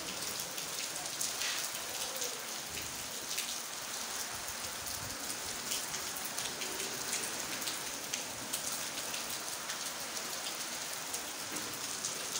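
Heavy rain falling steadily, with many drops splashing onto a wet paved floor and into puddles.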